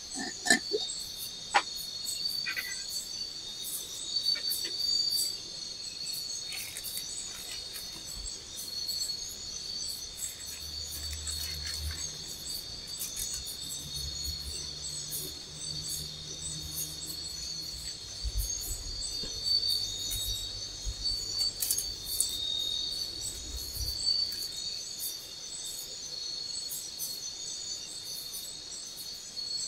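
Forest insect chorus: a steady, high, dense chirring of many insects. Two sharp clicks come in the first two seconds, and a faint low hum runs through the middle.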